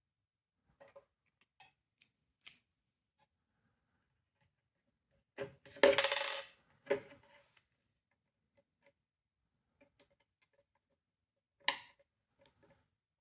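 Small hard parts of a smoke detector being handled and set down on a work surface: scattered light clicks, one louder rattling clatter about six seconds in, and a sharp knock near the end, several with a short ringing note.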